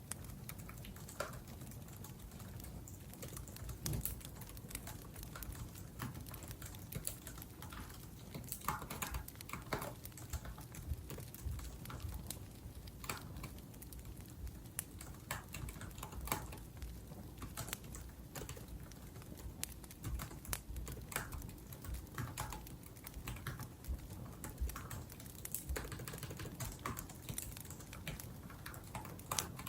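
Laptop keyboard typing: quick, irregular key clicks, over the soft crackle of a burning wood fire.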